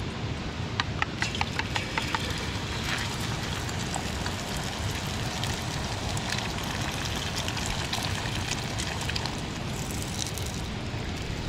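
Portable camping gas stove burning at full flame, a steady rushing noise, while vegetables and sausage sizzle and crackle in the pan. About a second in, a quick run of about eight sharp clicks from a spatula working against the pan.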